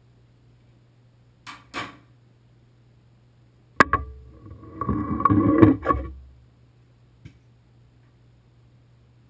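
Tools and valve parts handled on hard surfaces: two short knocks about one and a half seconds in, then a sharp knock and about two seconds of clattering and scraping as a Moen Posi-Temp shower valve cartridge is set down close up. A faint click follows near the end, over a low steady hum.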